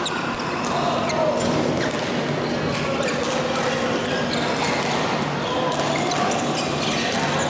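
Badminton hall sound: scattered sharp racket-on-shuttlecock hits from several courts, over a steady hum of distant voices in a large echoing hall.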